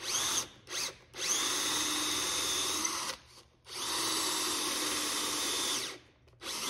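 Cordless drill boring countersunk pilot holes into walnut rudder cheeks: two quick spurts, then two steady runs of about two seconds each that rise in pitch as the motor spins up, and a short spurt at the end.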